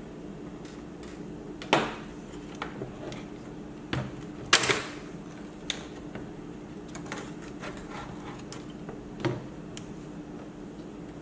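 Scattered clicks and knocks of hands handling laptop parts and tools, about half a dozen over several seconds, the sharpest a little under two seconds in and about four and a half seconds in. A steady low hum runs under them.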